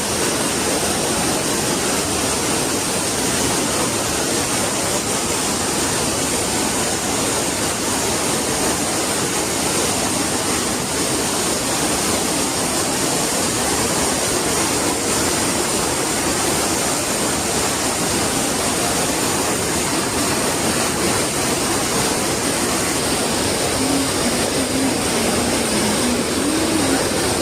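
Waterfall: water falling and splashing in a loud, steady rushing noise that doesn't let up.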